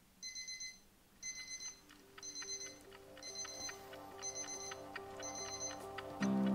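Phone alarm beeping in six short bursts of rapid high beeps, about one burst a second. Soft music fades in under it, and louder music starts just before the end.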